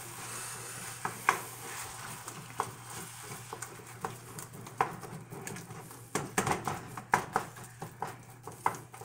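Wooden spoon stirring and breaking up ground beef in a metal frying pan, with irregular scrapes and taps against the pan, busiest a little past the middle, over a light sizzle of meat, onions and peppers frying in oil on high heat.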